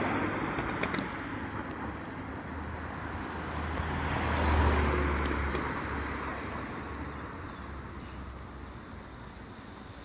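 Cars passing close by on a road, with tyre and engine noise. One swells and fades at the start and another, louder, passes about four and a half seconds in, then steadier traffic further off.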